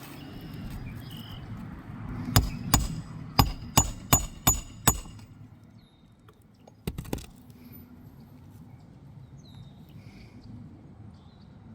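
Hammer driving roofing nails through an asphalt shingle: seven sharp, ringing strikes in quick succession over about two and a half seconds, then a couple of lighter knocks a little later.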